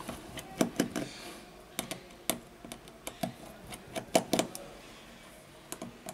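Irregular light clicks and taps of a small screwdriver and fingertips on a phone's plastic midframe as the frame screws are backed out, about a dozen sharp ticks with gaps between them.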